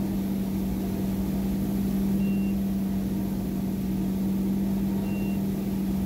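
Ski boat engine running steadily at towing speed while pulling a slalom skier, heard from the driver's seat as an even hum. A faint short high beep sounds about every three seconds.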